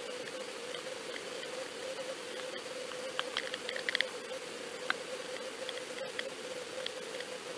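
Steady hiss and low hum picked up by an underwater camera sealed in its waterproof housing as it sinks deep in a lake. Scattered small clicks and ticks come through it, mostly in a cluster about three to four seconds in.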